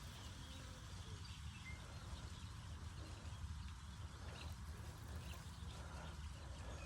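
Outdoor ambience: a steady low rumble of wind on the microphone, with scattered short bird chirps.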